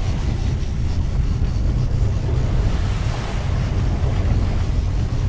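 Wind buffeting the microphone and water rushing past the hull of a moving center-console fishing boat, with the low drone of its twin outboard motors underneath. Steady throughout, with no sharp events.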